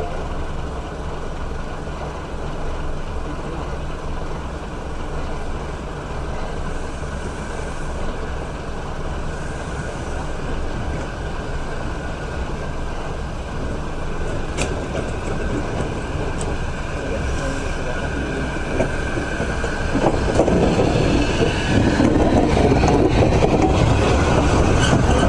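A train dressed as Thomas the Tank Engine runs slowly into the station over a steady low hum, with a single clank about fifteen seconds in. From about twenty seconds in, its coaches rumble past close by and the sound grows louder.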